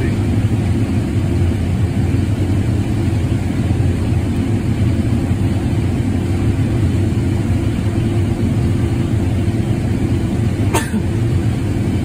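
Combine harvester running while harvesting corn, heard from inside the cab: a steady, even low drone. A single short click comes near the end.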